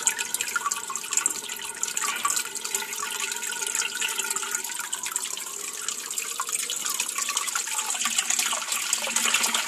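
Aquaponics return water running from a PVC pipe elbow into the fish tank, a steady stream splashing and gurgling on the water surface. It grows slightly louder near the end.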